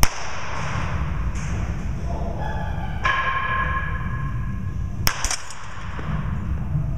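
Baseball bat striking a ball with a sharp crack at the start, and again about five seconds in as a quick double click, over a steady low hum. A brief ringing tone sounds about three seconds in.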